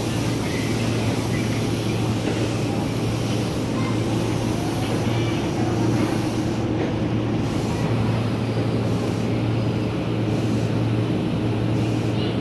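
Steady low electric hum and rumble of a KRL electric commuter train at a station platform, unchanging throughout, with faint voices underneath.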